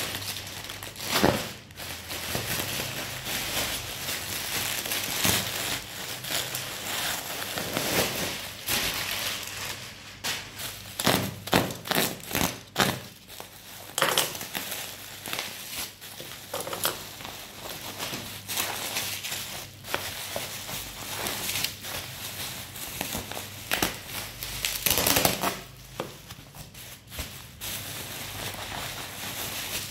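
Packaging being handled and opened: crinkling and crackling with many sharp snaps and knocks, in clusters about a second in, between about 10 and 13 seconds in, and near 25 seconds, then quieter.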